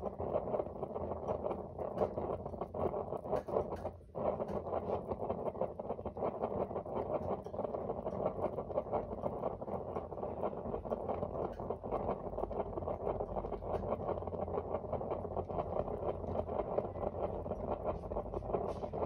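Sengoku/Aladdin GKP-P248N kerosene heater's burner flame burning with a steady rushing, crackling sound, briefly dipping about four seconds in. This is the burning sound of the blue-flame start, heard before the burner head heats up and the heater goes quiet.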